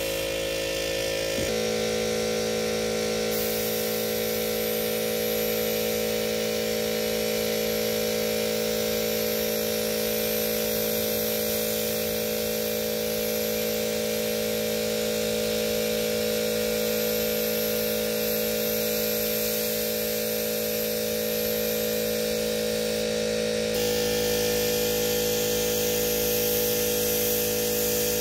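Air compressor running with a steady hum, mixed with the hiss of compressed air from an HVLP spray gun spraying paint. The hum shifts abruptly about a second and a half in and again near the end.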